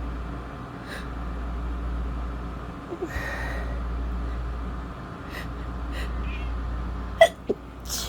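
Congested woman with a head cold sniffling and breathing through a stuffy nose, a few short sniffs spread through, the sharpest and loudest near the end.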